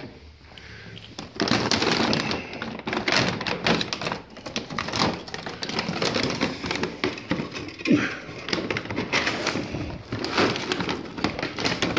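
Plastic bag of cat food being handled and rummaged, a dense crinkling rustle full of small crackles that starts about a second in and keeps going.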